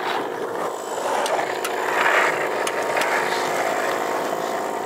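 A vehicle engine idling steadily, with two swells of rough scraping noise and a few sharp clicks over it.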